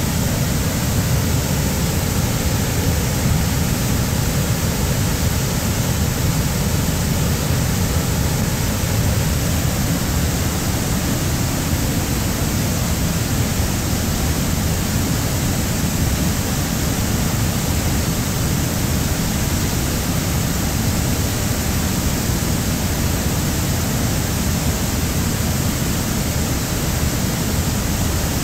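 Floodwater pouring over a concrete dam's spillway and crashing into the pool below: a loud, steady, deep rushing noise that does not change.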